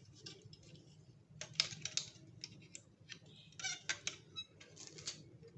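Plastic toy train track pieces being handled, with light clicking and crackling in three short bursts.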